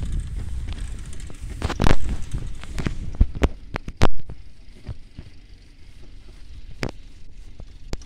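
Bicycle ridden over a bumpy forest path: irregular rattling clicks and knocks from the bike, with two loud bumps about two and four seconds in. A low rumble fades out after about three seconds.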